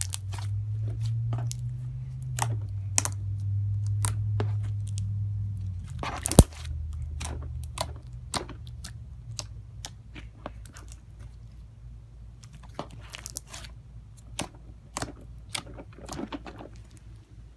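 Jumbo slime being squeezed, stretched and poked by hand, making irregular small clicking and popping sounds, with one louder pop about six seconds in. A low hum sits underneath for the first half.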